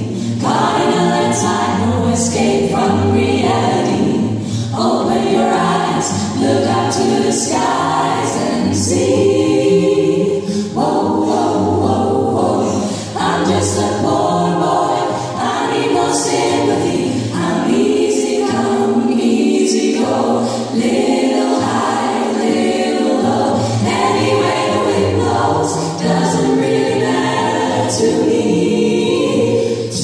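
Female vocal ensemble singing in several parts into microphones, continuous a cappella-style choral singing.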